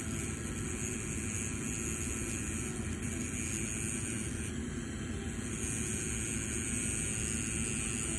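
Rotary pen-style tattoo machine with a cartridge needle running steadily as it works ink into the skin, a continuous whirring hum with hiss that shifts slightly about halfway through.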